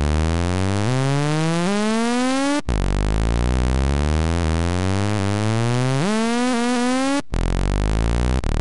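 Native Instruments Massive software synthesizer playing a loud, buzzy bass patch in monophonic mode, one note at a time, with the pitch gliding smoothly from note to note. The notes slide up in pitch around the first and second seconds and again about six seconds in, and the sound breaks off briefly twice.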